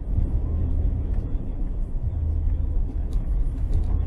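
Steady low rumble of a car driving on a snow-covered road, heard from inside the cabin. A few faint ticks come about three seconds in.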